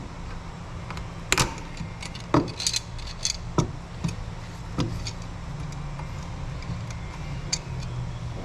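Scattered metallic clinks and taps of hand tools knocking against engine parts, about eight in all, over a steady low hum.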